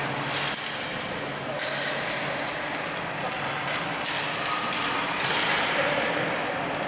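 Skates scraping and hissing on the ice and sticks knocking during play in a large rink hall, with players calling out now and then.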